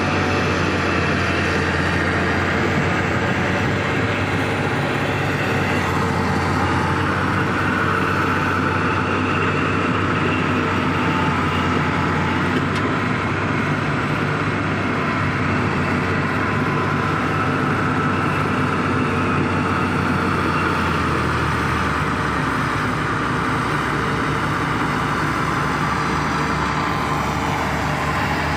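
Komatsu D70LE bulldozer's diesel engine running steadily, its low engine note shifting about two-thirds of the way through.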